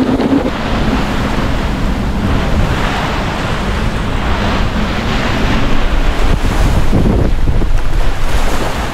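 Hurricane wind blasting across the microphone in a continuous rushing roar, over choppy, whitecapped water.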